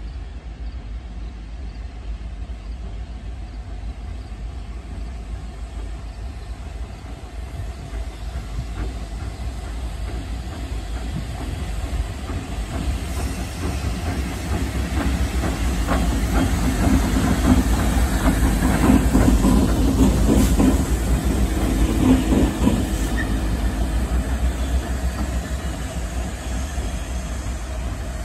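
Two Union Pacific diesel locomotives running light approach and pass, their engine rumble and wheel clatter on the rails growing louder to a peak about two-thirds of the way through, then fading as they move off.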